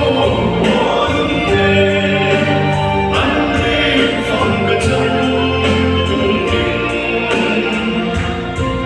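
A man singing a song into a handheld microphone, amplified through a PA, over backing music with a steady bass line.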